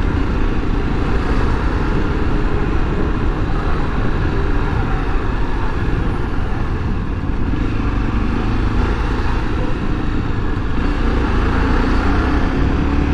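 Honda XRE300's single-cylinder engine running steadily as the bike moves between lanes of traffic, mixed with road and traffic noise.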